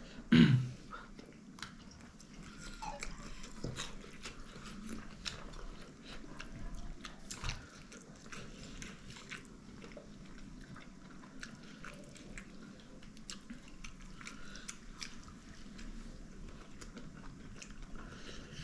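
Close-up eating sounds: a person biting and chewing food, with many small sharp clicks and soft mouth noises. A louder short sound comes about half a second in.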